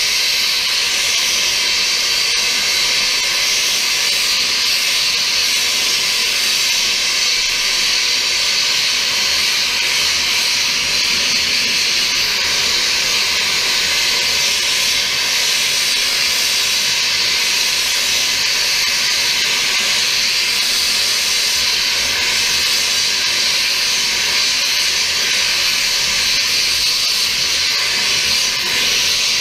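A loud, steady hissing noise from a tool at work, even and unbroken throughout.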